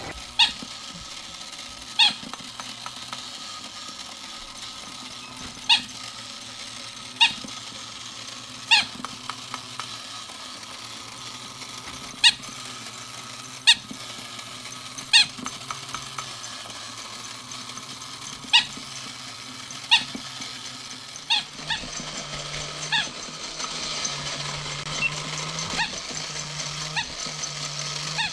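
Battery-operated Trumpet Monkey toy running: its mechanism keeps up a steady hum while a small bell rings in sharp strikes, about one every second and a half. Under it a low buzzing horn tone steps between two pitches, growing louder over the last several seconds.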